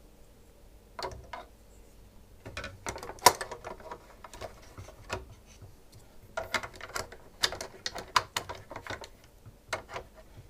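Irregular clicks, taps and light clattering of small plastic and metal parts of a SodaStream being handled and fitted during repair. They come in two clusters, the sharpest tap about three seconds in.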